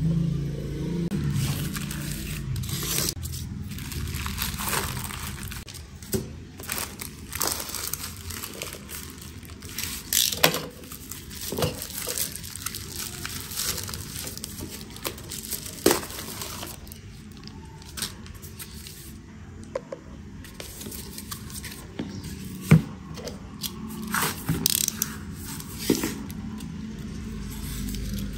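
Packaging being handled and opened: scraping, tearing and crinkling, with scattered sharp clicks and taps. The loudest click comes about two thirds of the way in.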